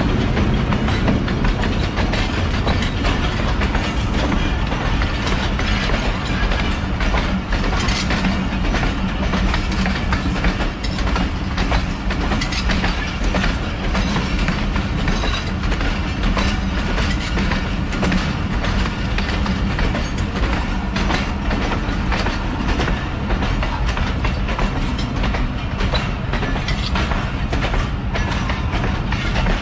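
Diesel-hauled passenger train pulling into the station: a steady diesel engine drone under repeated clicking of wheels over rail joints.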